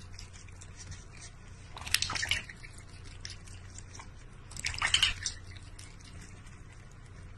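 A cat and a duck drinking from a stainless steel water bowl: many small wet laps and drips, with louder splashes about two and five seconds in, over a low steady hum.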